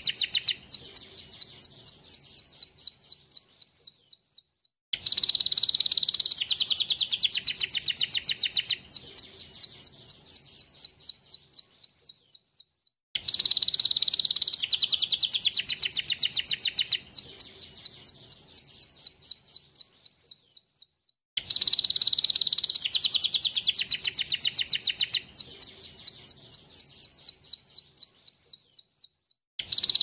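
Domestic canary singing a learned plain prinia (prenjak sawah) phrase: a short high warble, then a long run of quick, falling 'tlik' notes, about four a second, that fade away. The same phrase comes back about every eight seconds after a sudden break, as a looped recording does.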